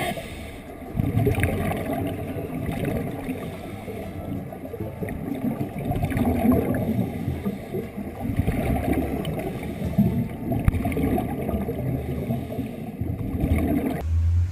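Water churning and gurgling, an uneven noisy rush that changes abruptly near the end.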